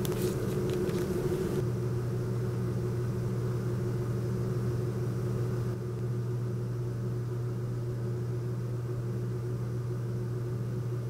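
A steady low hum of room tone, with a few faint small clicks in the first second and a half.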